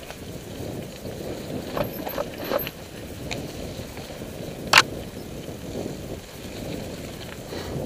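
Mountain bike rolling along a dirt and leaf-covered singletrack: steady tyre and wind noise, with a few light rattling clicks from the bike and one sharp knock almost five seconds in.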